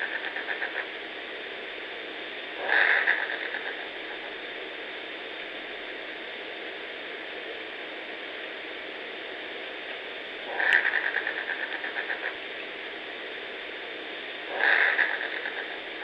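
An unidentified backyard creature calling again and again: each call starts sharply and breaks into a fast stuttering rattle of about ten pulses a second that fades over a second or so. Three calls, about 3, 11 and 15 seconds in, over a steady hiss.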